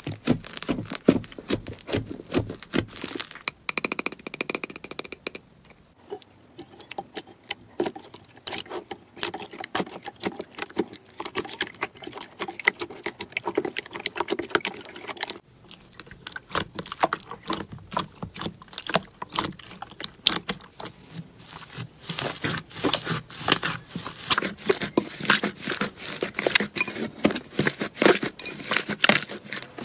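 Hands squeezing, poking and kneading slime in a bowl: a dense run of wet crackles and clicking pops as trapped air pockets burst, broken by short pauses.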